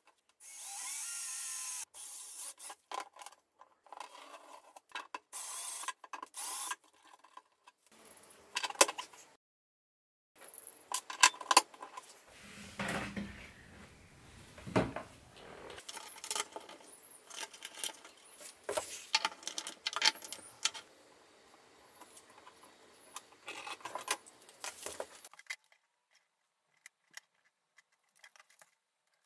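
Cordless drill with a step drill bit cutting holes through a plastic enclosure lid, heard in several short bursts broken by abrupt cuts, with scattered clicks and scrapes. Near the end only a few faint clicks remain.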